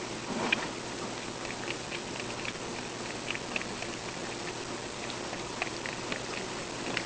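A cat lapping milk: an irregular run of small, wet ticks, a few a second, over a steady faint hiss.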